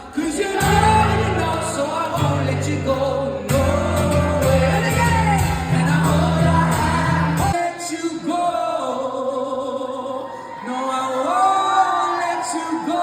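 Live singing with instrumental accompaniment in a large hall: low sustained chords under the melody stop about seven and a half seconds in, and the voice carries on with lighter backing.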